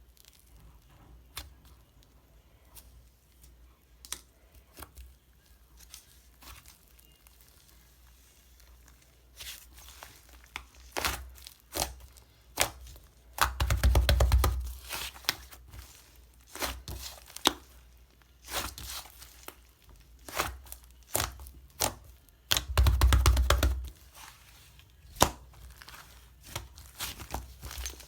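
Fluffy white clay slime being squeezed, poked and pulled apart by hand, giving scattered small pops and crackles. There are two longer stretches of dense crackling and tearing, about halfway through and again near the end.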